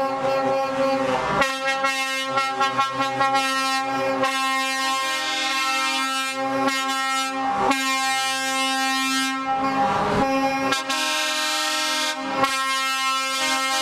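Truck air horns sounding long, chord-like blasts that change pitch every second or two, with short breaks between.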